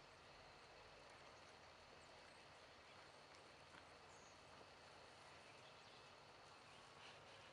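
Near silence: a faint steady outdoor hiss with a few soft, irregular hoof falls of a horse moving over an arena's sand surface.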